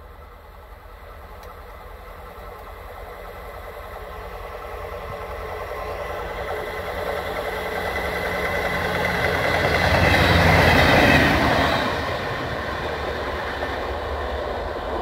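Passenger train approaching and passing close by on the rails. It grows steadily louder for about ten seconds, is loudest about ten to eleven seconds in as it goes past, then fades as it moves away.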